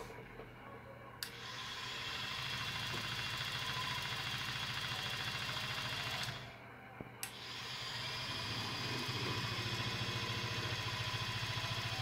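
Toy washing machine's small electric motor turning the drum with a steady hum and whine. It runs for about five seconds, stops for about a second, then starts again with a click, in the demo program's 5-seconds-one-way, pause, 5-seconds-the-other-way wash rhythm. The drum vibrates from the toy laundry clumped to one side.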